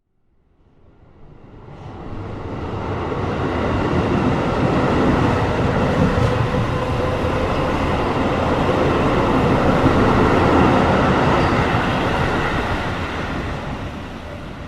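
Train running on rails: a dense rumble and rail noise that swells up from silence over the first few seconds, stays loud, then dies away near the end.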